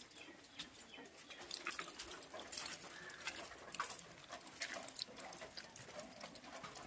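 Faint, scattered light snaps and rustles of leafy herb sprigs being picked by hand.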